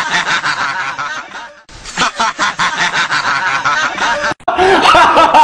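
A person laughing hard and loudly in a fast run of 'ha's, about five a second. The laughter breaks off briefly twice.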